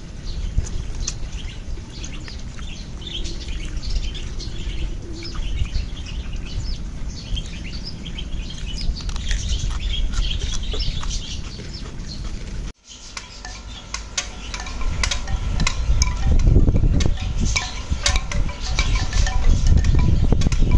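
Birds chirping in short high calls. After a sudden cut, hanging bamboo wind chimes knock together in rapid, irregular clacks, with a hollow ringing tone.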